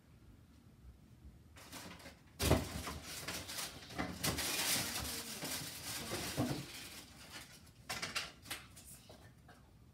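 Rustling and knocking from things being handled, with a sharp knock about two and a half seconds in, a few seconds of busy rustling after it, and a few clicks near the end.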